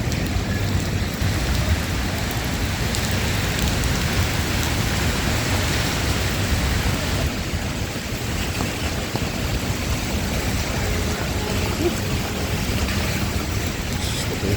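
Steady rain falling on a city street, with a low steady rumble of traffic underneath.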